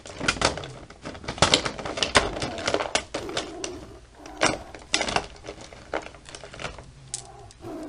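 Makeup products clicking and clattering against each other as they are rummaged through: an irregular run of small taps and knocks.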